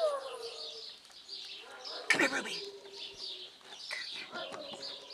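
Birds chirping steadily in the background, with a short loud sound about two seconds in that falls in pitch.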